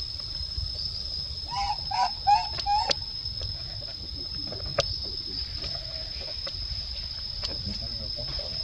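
Baby monkey giving four short, quick cooing calls in a row about a second and a half in, calling for its mother. A steady high-pitched buzz runs underneath.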